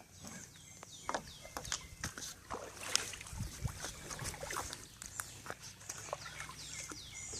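Kayak paddling sounds: scattered light knocks of the paddle and hull with small splashes of water. A bird repeats short chirps that fall in pitch.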